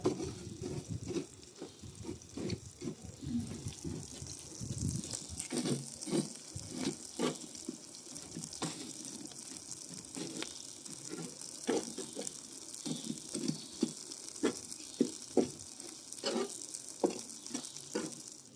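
Wood fire crackling and hissing, with many sharp irregular pops and some low knocks: eggplants roasting over the open flames.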